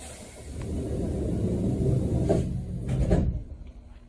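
Sapporo streetcar's doors sliding: a low rumble building over about three seconds, with two knocks a little under a second apart near the end.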